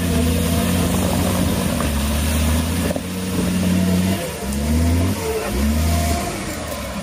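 Engine of a GAZ-69-based off-road special running steadily under load as the truck pivots tightly on its directional brakes, then revved in two quick rises near the end before dropping back toward idle.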